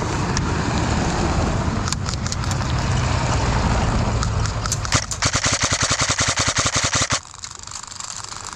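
Low rumble with a few scattered single shots, then, about five seconds in, a sustained full-auto burst from an airsoft gun, about a dozen shots a second for two seconds, that cuts off abruptly.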